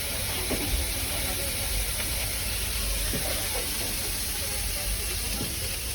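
Street-stall kitchen noise: a steady high hiss over a low rumble, with faint voices.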